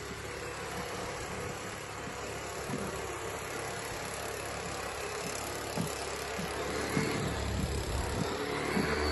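Small petrol engine of a radio-controlled model boat running steadily as the boat travels across the water.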